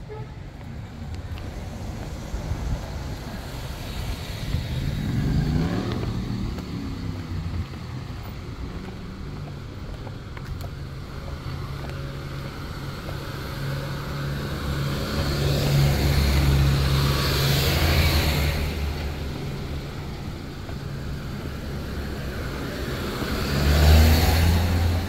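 Motor vehicles on a street: a steady engine hum, with cars passing close several times and the loudest pass near the end.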